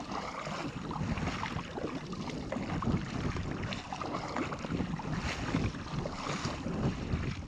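Kayak paddle strokes splashing into choppy sea water and spray at the bow as the kayak is driven forward hard, with wind rushing over the microphone. The sound comes in uneven surges of splashing over a steady wind noise.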